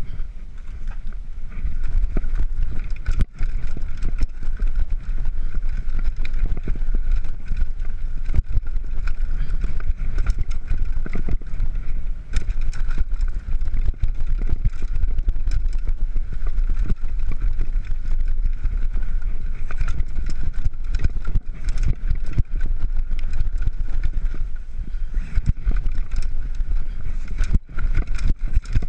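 Downhill mountain bike ridden fast down a dirt forest trail: heavy wind rumble on the microphone, tyres rolling over dirt, and a constant rattle of frame and chain with sharp knocks over bumps, under a steady high buzz.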